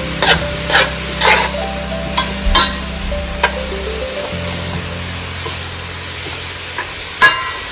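A metal spoon stirring cabbage and saltfish in a metal pot, with several scrapes and clicks against the pot in the first few seconds and one sharp knock near the end, the loudest sound. The vegetables sizzle in the pot throughout.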